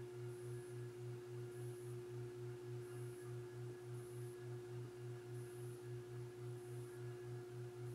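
Toaster oven running while it heats a circuit board for reflow soldering: a faint steady electrical hum over a lower hum that throbs on and off about three to four times a second.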